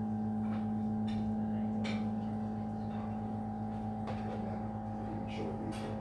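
Whirlpool dishwasher running its final rinse: a steady hum from the wash pump with water spraying inside the tub, and a few faint clicks.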